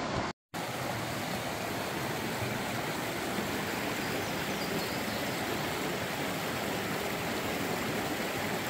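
A creek's flowing water rushing steadily, broken by a brief silent gap about half a second in.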